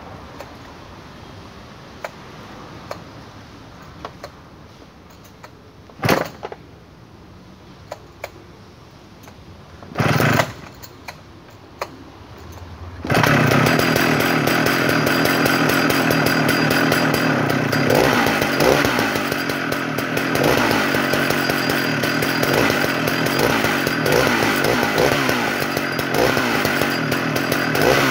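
Modified Jonsered 111S two-stroke chainsaw being started: scattered clicks and two short loud bursts, then about 13 seconds in the engine catches and runs steadily to the end, its pitch rising and falling a little now and then.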